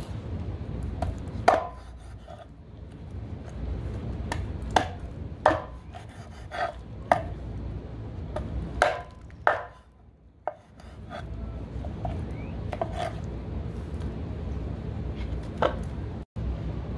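A cleaver chopping raw chicken into pieces on a wooden cutting board: about a dozen sharp, irregularly spaced chops over a steady low hum.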